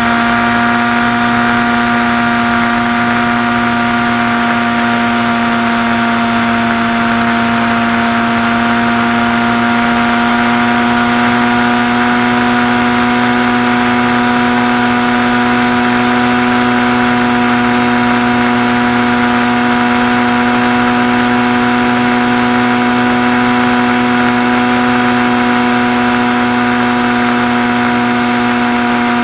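Electric motor and propeller of a Skywalker RC model plane running steadily, a constant hum with a nearly unchanging pitch over a hiss of wind.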